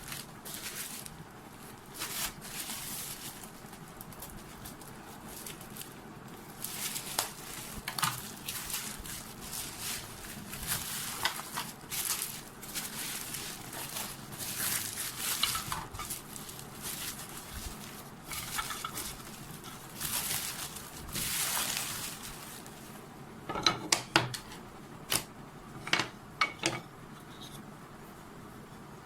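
Packaging rustling as items are unwrapped and handled, with a run of sharp clacks and knocks of hard objects being set down or tapped about two-thirds of the way through.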